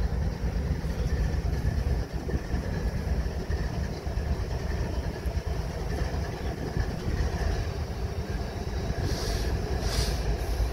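Diesel engine of CSX 833, a GE Evolution-series locomotive, running steadily while the train stands still: a constant deep rumble. A couple of short hissing bursts come near the end.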